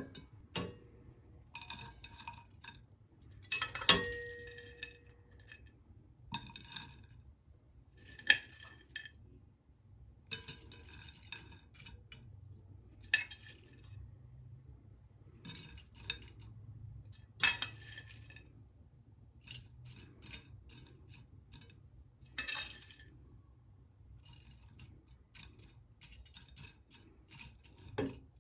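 Cutlery and dishes clinking on and off, about a dozen separate clinks, with a louder one about four seconds in that rings briefly.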